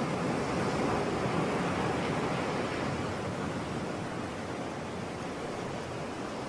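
Steady rushing sound of small sea waves breaking and washing onto a sandy beach.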